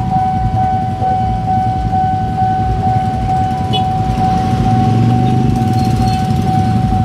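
Level-crossing warning alarm sounding one steady high tone, over the low rumble of many idling motorcycle engines. The engine noise swells about five seconds in as the waiting motorcycles start to move off.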